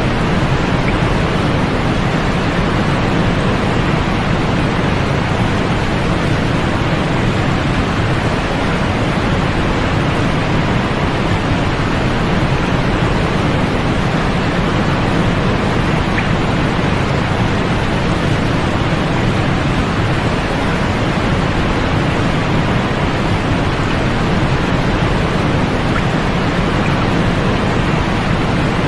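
Steady artificial noise played as a sleep aid, billed as white noise: a constant, even hiss, fuller in the low end and dull at the top, much like pink noise, with no change or events.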